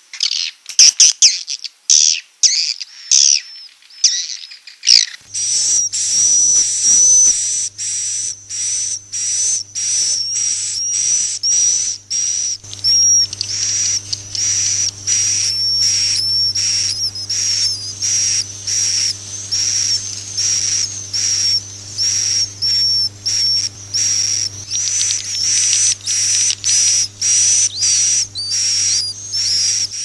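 Recorded swiftlet calls used as a roosting lure (suara inap) to draw swiftlets into a swiftlet house: high, rapid chirping. About five seconds in, the chirps become a dense, continuous twittering broken two or three times a second, over a low steady hum.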